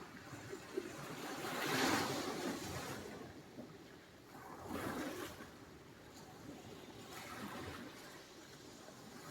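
Sea surf: waves breaking and washing in one after another, each a swelling rush of water noise that fades away. The loudest comes about two seconds in, and smaller ones follow about five and seven seconds in.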